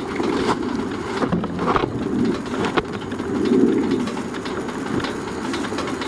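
BMW R1200GS boxer-twin engine running under way, a low uneven rumble mixed with wind and road noise, swelling briefly a little past halfway.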